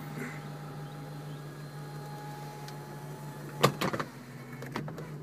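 Power convertible top of a 2006 Ford Mustang GT being raised: a steady motor whine, then a sharp clunk and a few lighter clicks about three and a half seconds in as the top moves into place.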